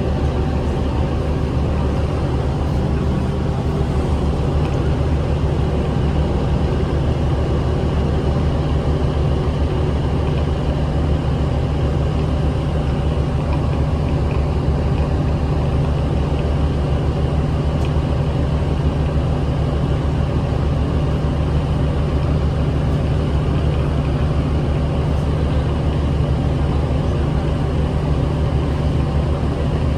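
Inside a 2008 New Flyer D40LF transit bus under way: its Cummins ISL 8.9-litre six-cylinder diesel drones at a constant pitch, with road noise, as the bus holds a steady speed.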